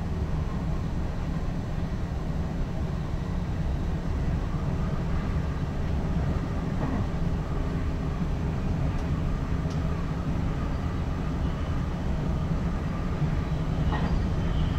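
Steady low rumble of an NS ICM (Koploper) electric intercity train running along the track, heard from inside the driver's cab, with faint clicks about seven seconds in and again near the end.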